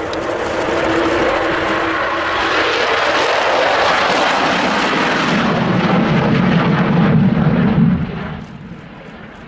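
Avro Vulcan's four Rolls-Royce Olympus turbojets at high power on take-off and climb-out, a loud jet roar that swells over the first few seconds, with the Vulcan's characteristic intake howl. The sound drops off sharply about eight seconds in.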